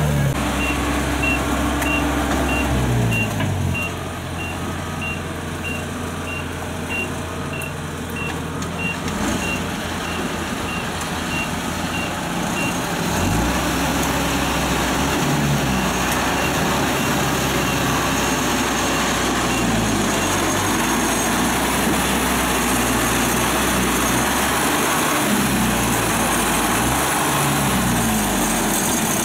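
Kubota combine harvester diesel engines running and being revved, their pitch rising and falling several times. Over the first dozen seconds a high-pitched beep repeats about twice a second, like a reversing alarm while the machines manoeuvre.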